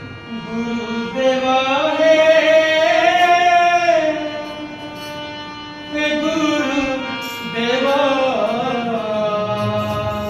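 Harmonium holding a steady drone, with a voice singing long, gliding, ornamented notes over it as the opening of a devotional kirtan. The singing swells twice and eases off in between.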